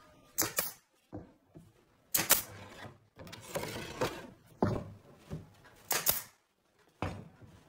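Pneumatic brad nailer firing into the corners of a pine frame: four sharp snaps, one to two seconds apart, with the wooden frame being slid and shifted on the workbench in between.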